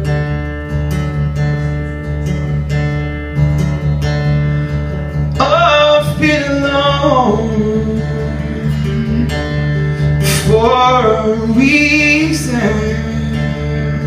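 Acoustic guitar strummed in a steady rhythm over held low notes, with a man's voice singing a melodic phrase that enters about five seconds in and another around ten seconds in.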